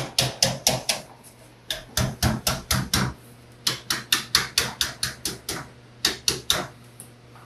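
Hammer tapping along the edge of a sheet-metal panel, light quick taps at about four to five a second in short runs with brief pauses, folding the edge over against a table edge.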